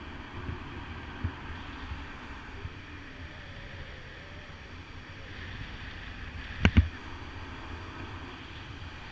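Wind buffeting the camera microphone in paraglider flight, a steady rush with low rumble. About two-thirds of the way through, two sharp knocks in quick succession.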